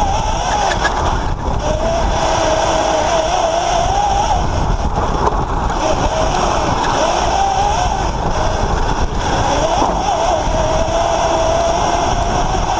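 Electric drift kart with a Zero FX motorcycle powertrain, heard onboard while driving: a whine that wavers up and down with speed, over a steady low rumble of road and wind on the microphone.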